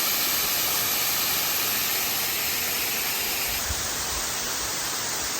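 Waterfall rushing steadily, an even hiss of falling water; the sound shifts slightly in tone and drops a little about three and a half seconds in.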